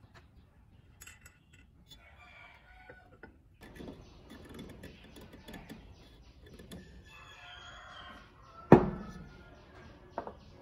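Handling a metal lamp housing and a threaded plastic fitting: light scrapes and clicks, then one sharp knock about 9 seconds in as the housing is set down on a wooden bench, and a smaller knock a second later.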